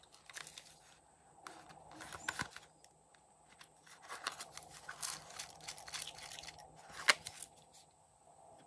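Small plastic toy-house container being handled and opened, with bursts of plastic clicking and rattling as sequins and glitter are shaken out of it onto slime, and one sharp click about seven seconds in.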